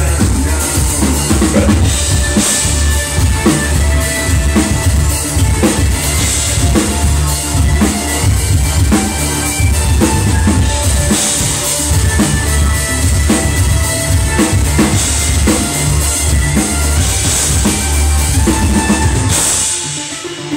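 Live band music driven by a drum kit playing a steady beat with kick drum, snare and cymbals over electric guitar and a heavy low end. The music dips briefly near the end.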